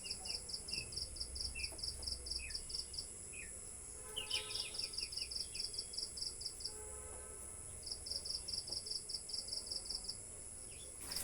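Crickets trilling in spells of two or three seconds, about six pulses a second, over a steady high insect whine, with short falling bird chirps in the first few seconds.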